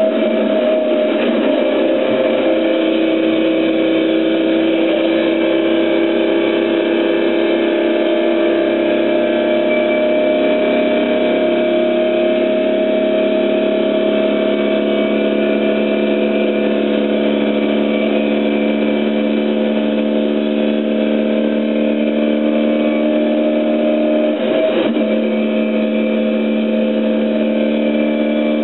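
Competition car's engine heard from inside the cabin, running hard and steadily under load. Its pitch climbs slowly for long stretches, with a brief break about 24 seconds in.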